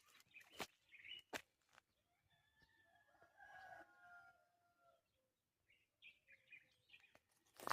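A rooster crows once, faintly, in one drawn-out call starting about two and a half seconds in. Small birds chirp briefly before and after it.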